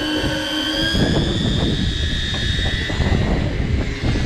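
Steady high whine of electric deep-drop fishing reels winding in line. A low rumble with scattered clicks joins it about a second in.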